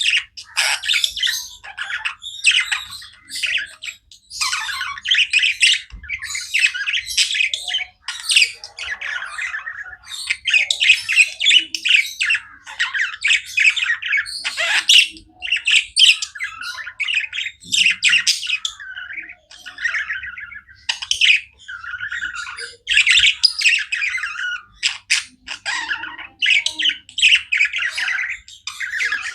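Budgerigars chirping and chattering non-stop, a dense run of quick chirps, warbles and squawks from several birds.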